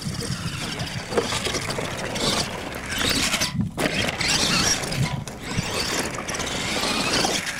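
Radio-controlled monster truck's motor and gear drivetrain whirring as it drives hard across loose dirt, its tyres scrabbling and scraping, with a brief break about halfway through.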